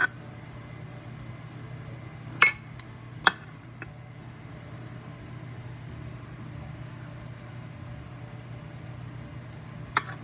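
Kitchenware clinking: a handful of sharp clinks, the loudest about two and a half seconds in, over a steady low hum.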